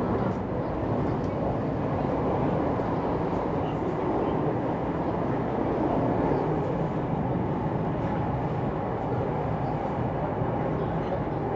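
Interior noise of a CAF metro train running through a tunnel: a steady rumble and roar of wheels on rail, heard from inside the passenger car.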